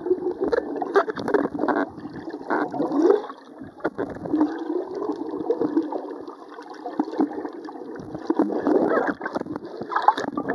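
Gurgling, bubbling water heard from underwater through an action camera's housing, muffled, with a low wavering hum and scattered knocks. It grows busier and louder near the end as the camera nears the surface among bubbles.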